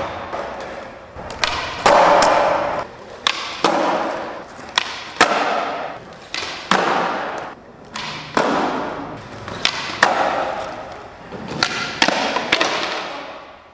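Skateboards doing flatground tricks on a smooth concrete floor: a string of sharp pops and landing slaps, each followed by the wheels rolling and fading out.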